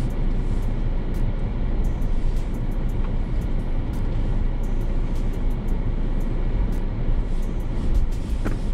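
2022 Ford Bronco driving slowly over an off-road trail: a steady low engine and drivetrain rumble with scattered light clicks and knocks, and a short squeak near the end.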